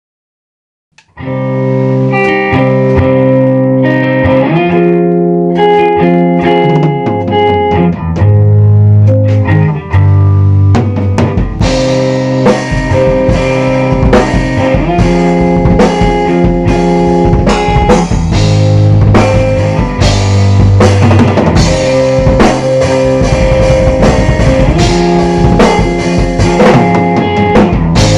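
Instrumental rock band music: guitar begins about a second in with held, ringing chords. A full drum kit joins with steady beats after roughly eleven seconds.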